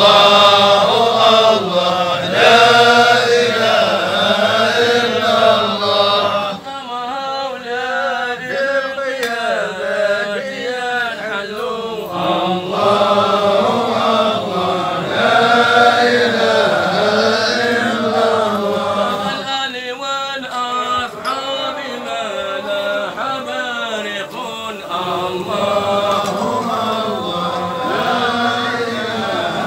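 Men's voices chanting Sufi dhikr in a hadra, a melodic phrase rising and falling and repeated over and over.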